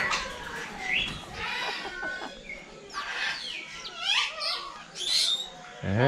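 Parrots calling: a scatter of short squawks and whistles, some sweeping up or down in pitch, coming several times with short gaps between.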